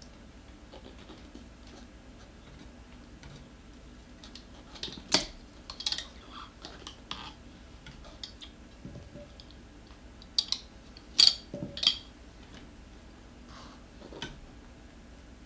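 Tools working a scooter tire off its rim: scattered sharp metallic clicks and clacks, with the loudest clusters about five seconds in and again around eleven seconds, as the bead is pried loose.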